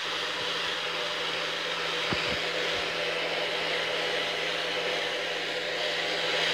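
Handheld hair dryer running steadily with a low hum, blowing on a wet puppy's fur.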